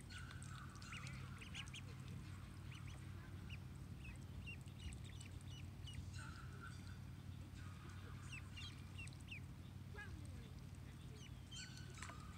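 Ducklings peeping over and over, a scatter of many short, high calls that slide downward in pitch.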